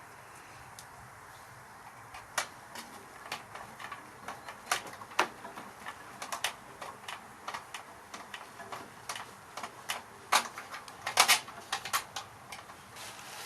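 Irregular light clicks and taps of small tools and parts being handled during electronics repair work, with a quick cluster of louder clicks a little after the middle.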